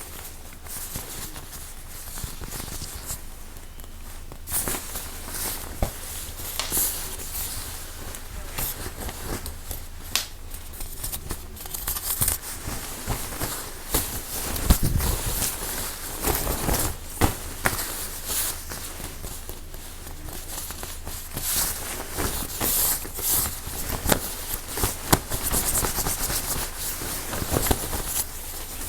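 Close-miked ASMR trigger sounds: quick tapping, scratching and crinkling on assorted objects, with the handled object changing every few seconds.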